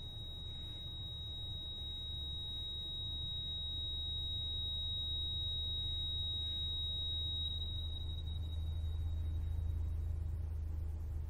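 Film sound-design drone: a steady high-pitched ringing tone over a low rumble that slowly swells, the tone fading out near the end.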